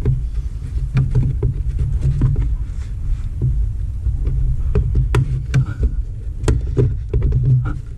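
Scattered sharp plastic clicks and knocks as a new air filter is pushed and worked into its plastic airbox housing, over a steady low rumble.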